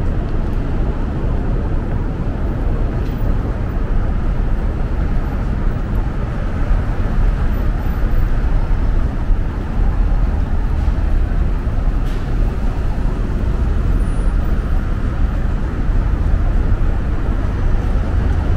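Steady rumble of downtown city traffic.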